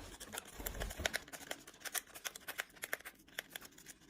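A cat working at a tea packet, giving quick, irregular crinkling and clicking of the wrapper that thins out near the end.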